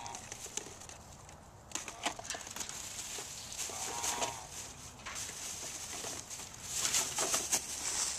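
A mule chewing food close to the microphone, with wet, crackly munching noises that come and go and are strongest near the end. A short animal call sounds once about four seconds in.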